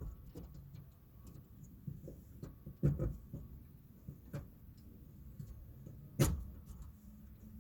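Scattered clicks and knocks of hand tools and metal parts being worked while a window regulator is fitted inside a pickup's rear door, with two louder knocks, one about three seconds in and one about six seconds in.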